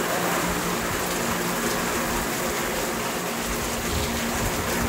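Heavy rain falling steadily on garden plants, lawn and paving, an even hiss of water.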